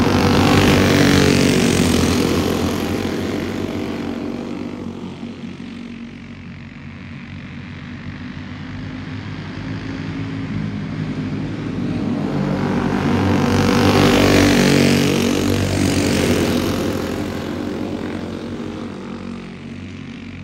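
A pack of racing go-karts' small single-cylinder engines running at speed, growing louder and fading twice as the karts go by, loudest about a second in and again about two-thirds of the way through.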